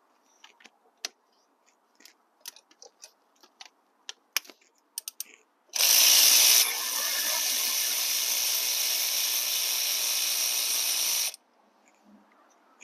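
Cordless electric ratchet with a 12 mm socket backing out a transmission fluid cooler bolt. Several seconds of small scattered clicks as the tool is fitted come first. Then the ratchet motor runs for about five and a half seconds, loudest for the first second as the bolt breaks loose, and cuts off suddenly.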